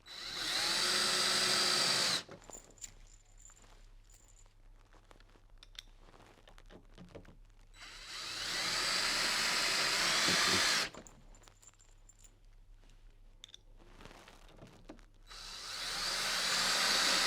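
Power drill-driver with a security bit driving screws part-way into a timber gate to hold a lock in place, in three separate runs of a few seconds each. Each run ramps up as the trigger is squeezed, then holds steady.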